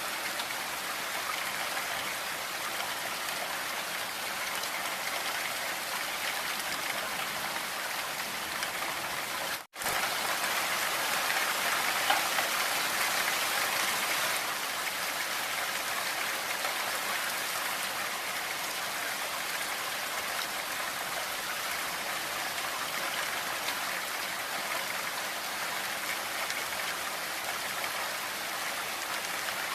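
Steady blizzard ambience: an even hiss of strong wind and blowing snow, without gusts standing out. It drops out for an instant a little under ten seconds in, then comes back slightly louder for a few seconds before settling.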